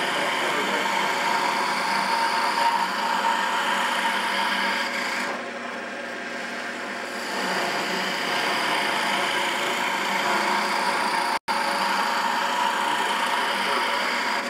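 Wood lathe running while a hand turning tool cuts a thin holly spindle, a steady scraping hiss of the cut over the lathe's hum. The cut eases off for about two seconds midway, and the sound drops out for an instant near the end.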